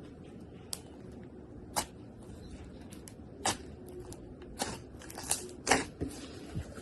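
Slime being squeezed and worked by hand, giving about six sharp, irregular pops and clicks over a low hiss, the loudest a little before the end.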